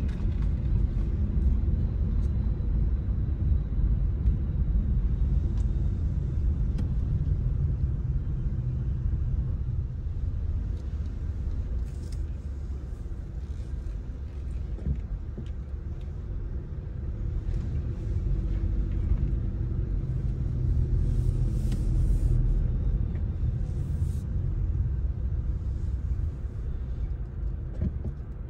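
Steady low rumble of a car driving on a paved country road: tyre and engine noise. It eases off for a few seconds in the middle, where the car slows for a left turn, then builds again.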